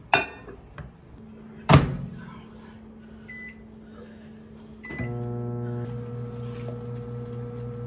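Microwave oven: two knocks as the door is shut, two short keypad beeps, then it starts running with a steady hum.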